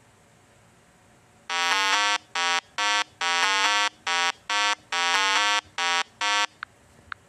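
Buzzy synthesized 8-bit-style electronic tones: a run of about nine short beeps stepping between two or three pitches, starting about a second and a half in and lasting about five seconds, then two faint blips near the end.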